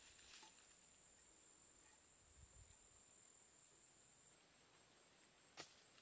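Near silence: faint outdoor ambience with a thin, steady, high-pitched insect drone that weakens about two-thirds of the way through, and one sharp click near the end.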